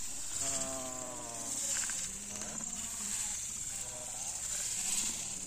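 Steady high-pitched buzzing of insects, with two drawn-out calls, about a second in and again about four seconds in.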